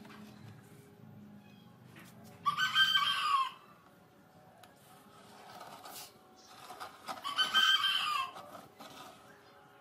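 Rooster crowing twice, each crow lasting about a second, the second coming about five seconds after the first.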